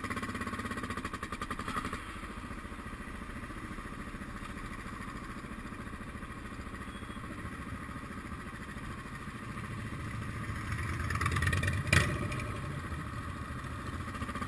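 Suzuki DR650 single-cylinder motorcycle engine running at low speed, heard from on the bike. It gets louder a couple of seconds before a single sharp knock about twelve seconds in.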